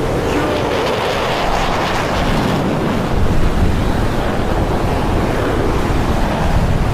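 Steady rushing noise of wind buffeting the microphone, with a sound like waves.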